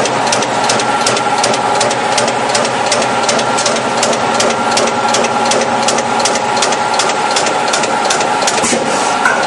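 Mechanical CNC turret punch press punching thin stainless steel sheet at high speed: a rapid, even train of sharp punch strikes, several a second, over a steady machine hum.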